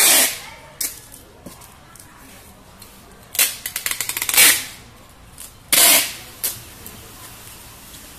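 Packing tape pulled off a handheld tape dispenser onto a cardboard carton: four loud, short ripping sounds, the second running into a quick series of crackles, with a few light knocks between them.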